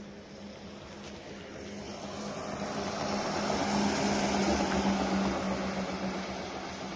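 A heavy lorry passing close by on a highway, its engine and tyre noise swelling to a peak about halfway through and then fading as it moves away, over a steady low hum.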